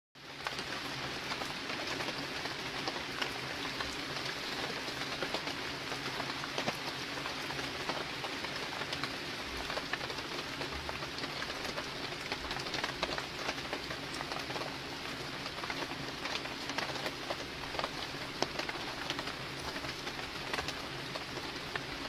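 Steady rain patter: an even hiss sprinkled with many small ticks of drops.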